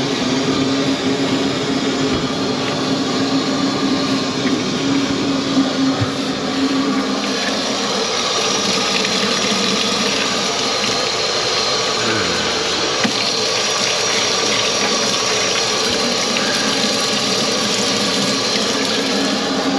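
Kitchen tap running into a stainless-steel sink, the stream splashing over gloved hands as they are rinsed. A steady low hum is also heard, strongest over the first several seconds before the splashing takes over.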